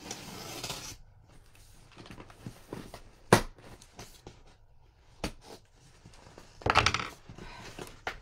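A blade slitting the packing tape along the seam of a cardboard shipping box. A rasping scrape comes in the first second and again near the end, with a few sharp clicks of the blade and cardboard between, the loudest about three seconds in.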